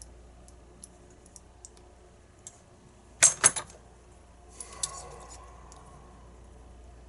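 Small metal lock parts being handled during disassembly: a few light ticks, then two loud sharp clacks about three seconds in, followed by a rattle with a brief metallic ringing that fades out.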